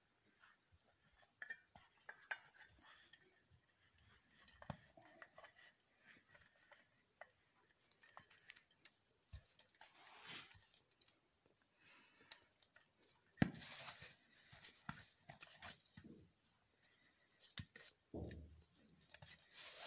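Hands kneading a thick dough of ground dry ginger and honey in a stainless steel plate: faint, scattered scrapes and taps of fingers against the metal, with a louder patch of rubbing and clicks about two-thirds through.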